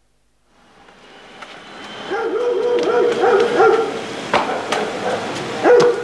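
A football kicked about on a concrete lane: sharp thuds of kicks, several in the second half, with children's voices calling out between about two and four seconds in. It rises out of silence about half a second in.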